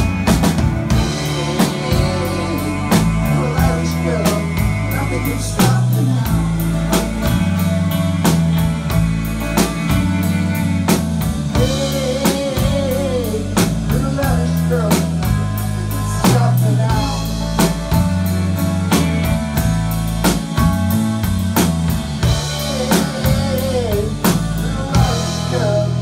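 Live rock band playing an instrumental break: an electric lead guitar bends and slides notes over a steady drum beat and a moving bass line.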